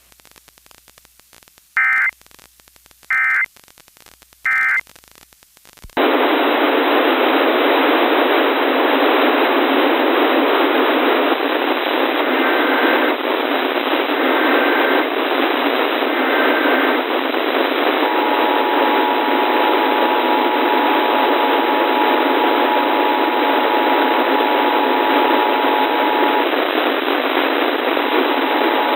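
Emergency Alert System end-of-message signal: three short, buzzy digital data bursts about a second and a half apart. About six seconds in, a steady hiss of radio static starts and runs on, with a faint steady tone sounding under it for several seconds in the second half.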